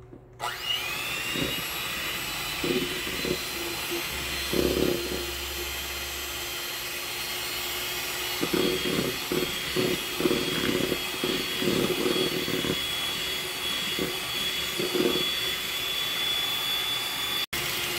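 Electric hand mixer starting up about half a second in, then running steadily with a high whine as its beaters whip eggs and sugar in a plastic bowl. A lower rattle from the beaters comes and goes. The mixer is old, and its owner says it no longer does its job very well.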